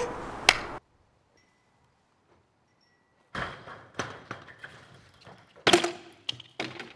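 BMX bike impacts: a metal clank, then after a gap of near silence a run of knocks and thumps, with one loud impact late on as a crashed bike hits the ground and bounces riderless.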